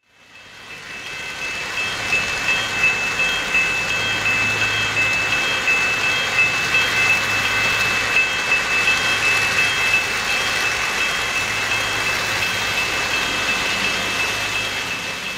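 O-gauge three-rail model coal train of hopper cars rolling past: a steady metallic rolling noise of wheels on track with a low motor hum, fading in at the start. A high ringing tone runs through it, pulsing evenly about one and a half times a second.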